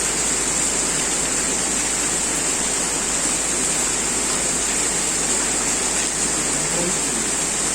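Heavy rain pouring down steadily, an even, unbroken hiss of water.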